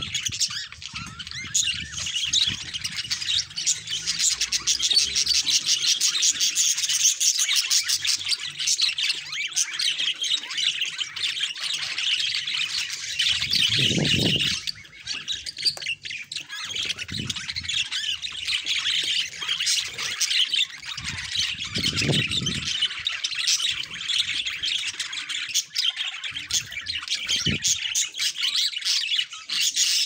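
A flock of budgerigars chattering and warbling steadily, a dense stream of chirps and squawks, with a few low thumps mixed in.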